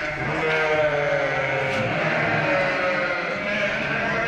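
A flock of sheep bleating, many calls overlapping one another without a break.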